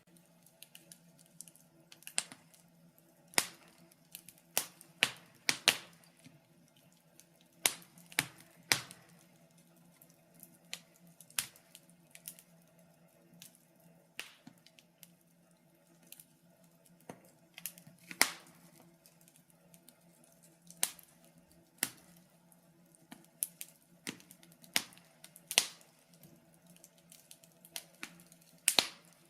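Wood fire crackling in a fireplace: sharp, irregular pops and snaps, sometimes two or three close together, over a faint steady low hum.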